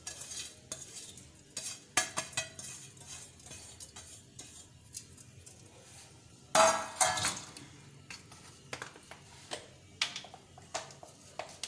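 Metal cookware clinking and knocking: a steel bowl and a slotted spoon against a metal cooking pot as crushed fried onions are tipped in. There are scattered light clicks, with one louder clatter about six and a half seconds in.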